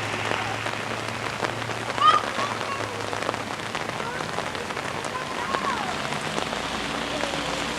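Steady rain falling and pattering on surfaces, with many small drop ticks. A few brief high-pitched calls sound over it, the loudest about two seconds in.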